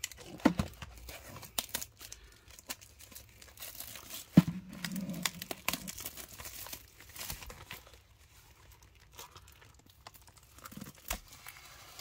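Plastic shrink wrap crinkling and tearing as it is peeled off a cardboard trading-card box, in irregular crackles, with one sharp knock about four seconds in.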